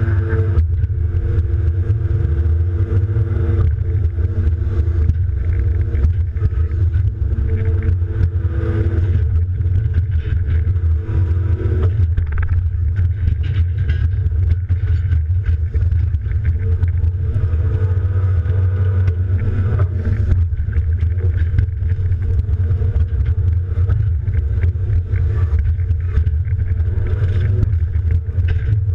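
John Deere 270D LC excavator's diesel engine running steadily under working load, heard from inside the cab. A deep, continuous hum carries pitched tones that change about twelve seconds in.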